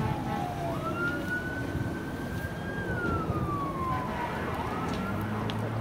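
Emergency vehicle siren wailing in slow sweeps: its pitch climbs, holds high for a couple of seconds, falls, and climbs again near the end. A low steady hum comes in near the end.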